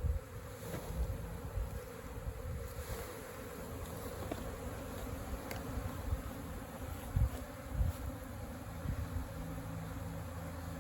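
A disturbed honey bee swarm buzzing in a steady hum. A couple of low bumps come about seven and eight seconds in.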